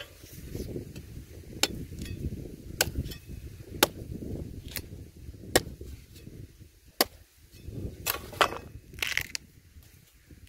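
Hoe chopping into dry soil and cassava roots: sharp strikes of the blade about once a second, with dull thuds and scraping of earth between them.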